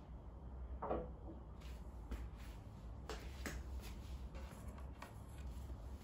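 Soft clicks and light knocks of small objects being handled on a wooden counter, the loudest a short knock with a brief ring about a second in, over a low steady hum.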